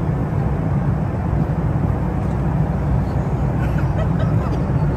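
Steady low cabin drone inside a Boeing 737 MAX 8 airliner: the even rumble of jet engines and airflow.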